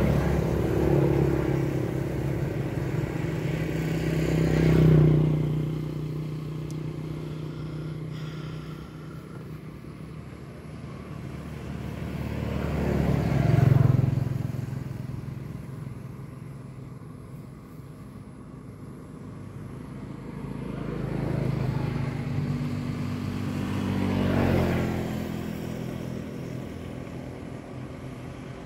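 Motor vehicles passing one after another, each engine swelling as it approaches and fading as it goes by, about four pass-bys.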